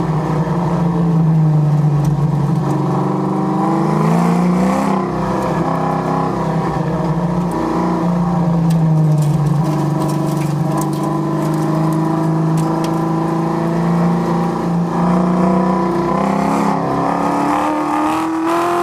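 A '69 Chevrolet Camaro's engine heard from inside the cabin, held in second gear on an autocross run. It revs up and eases off several times, then climbs hard near the end toward about 5,100 rpm under full throttle at the finish.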